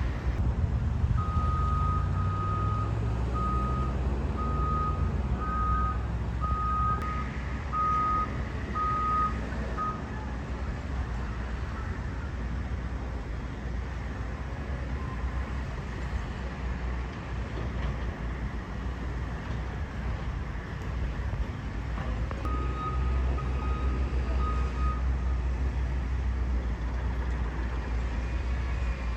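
Construction vehicle's reversing alarm beeping in a steady series of about ten high single-tone beeps, a little over one a second. A shorter, fainter run of beeps follows near the end, over the continuous low rumble of diesel engines.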